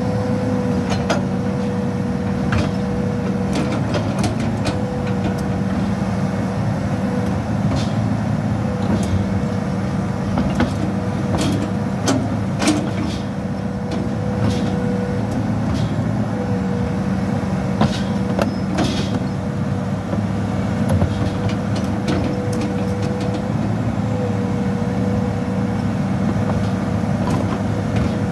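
Hitachi crawler excavator's diesel engine running steadily under working load, with a steady higher whine that breaks off briefly every few seconds. Scattered metal clanks and knocks sound as the machine works the mud.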